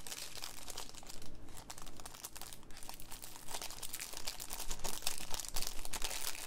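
Clear plastic sleeve crinkling and crackling without letup as it is worked off a new fountain pen by hand.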